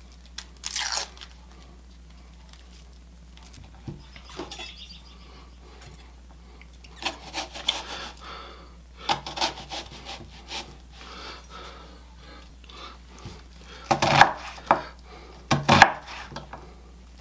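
An onion is peeled by hand, its dry skin rustling, and then sliced with a chef's knife on a bamboo cutting board. The blade taps the board in irregular strokes, and the sharpest strokes come in a cluster near the end.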